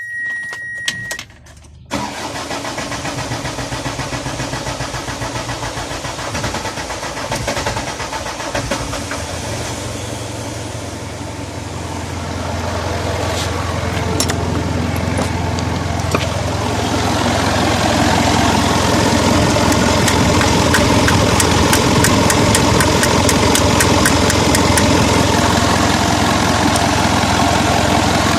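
Mitsubishi 4M50 four-cylinder diesel engine starting about two seconds in after a crankshaft position sensor repair for hard starting, then running. It grows louder over several seconds midway and settles to a steady run.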